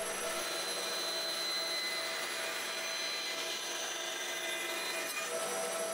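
Bandsaw running steadily, its blade cutting a curved line through a wooden board.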